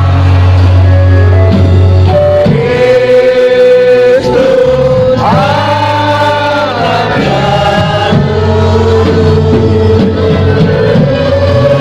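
Background music: a song with a singing voice holding long notes over a steady bass line.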